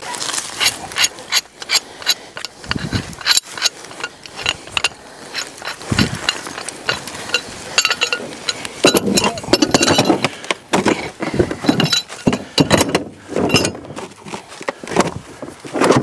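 Hand tools being worked on metal: ratchet-like clicking and metal parts clinking in irregular bursts.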